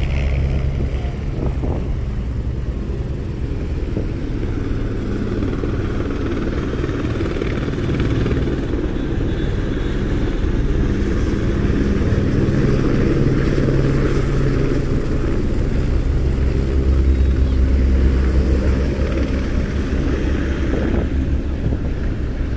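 Multirotor drone's propellers humming steadily, the low tones swelling and easing as the throttle shifts.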